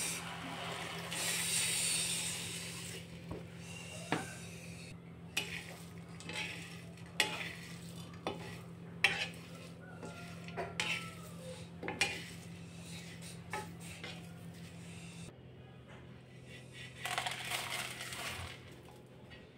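A spatula stirring whole spices as they dry-roast in a pan, with irregular clinks and scrapes against the metal. A steady low hum runs underneath and stops about three-quarters of the way through.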